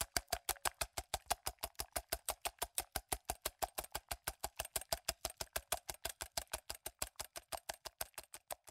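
Fast, even ticking or clicking, about six or seven clicks a second, with a faint steady tone underneath, getting quieter near the end.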